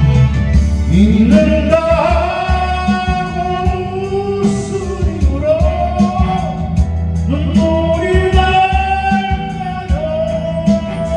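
A voice singing a slow Korean ballad in long, wavering held notes over a backing track with bass, drums and guitar.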